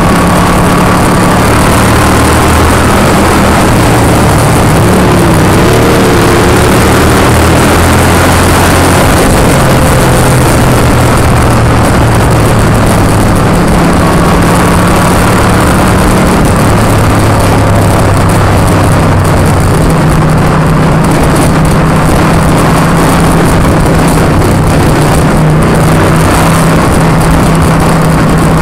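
Motorcycle V-twin engine running at road speed under loud wind rush; the engine note steps up and down a few times as the speed changes.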